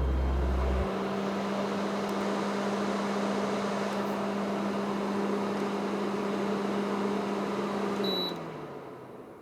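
Air purifier fan motor running with a steady hum and airflow hiss. About eight seconds in it gives a short beep, and the motor winds down with falling pitch.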